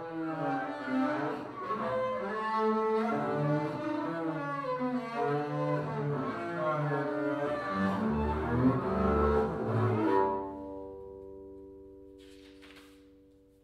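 Double bass played with a bow: a slow melody of held notes with vibrato, dipping to low notes near the end of the phrase. About ten seconds in the bowing stops and the last notes ring on, fading away.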